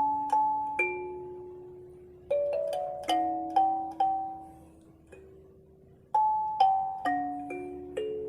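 Kalimba playing a slow melody over chords: plucked metal tines ring out and fade, with a brief lull a little past the middle before the next phrase.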